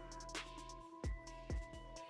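Quiet background music of held tones with a deep drum beat, the drum landing about every half second.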